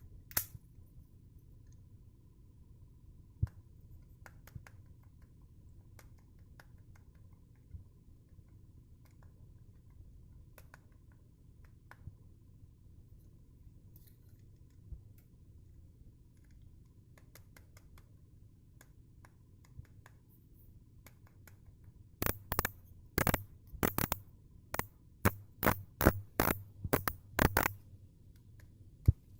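Piscifun Torrent baitcasting reel's mechanism giving scattered faint clicks, then, in the last several seconds, a quick series of about a dozen loud, sharp knocks: an unexplained knock inside the reel.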